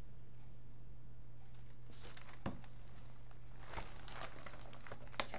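A picture book being handled and its pages turned: soft paper rustles from about two seconds in, with a few light clicks, over a steady low hum.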